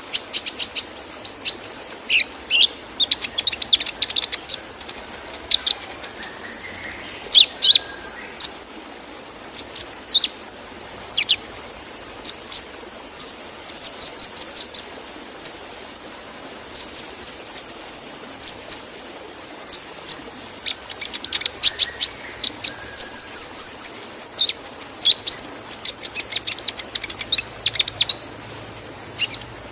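Kolibri ninja sunbird singing a fast, high-pitched song of sharp chirps and quick rattling trills, in rapid bursts with short pauses, over a steady rush of waterfall.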